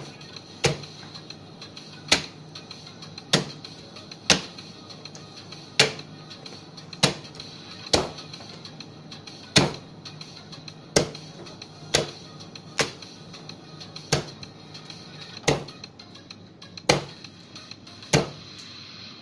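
Butcher's cleaver chopping into a large block of beef on a cutting board, a sharp strike roughly every second, about sixteen in all. Steady background music plays under the strikes.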